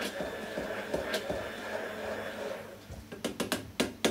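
Stick blender whirring in a tall stainless steel beaker as it emulsifies mayonnaise. The motor stops about two and a half seconds in, followed by a quick series of sharp metallic knocks against the steel beaker.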